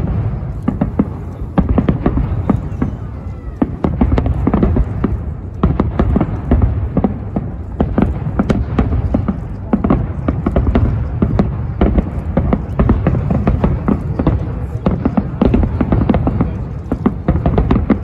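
Aerial firework shells bursting in rapid succession, a dense string of booms and crackles over a continuous low rumble.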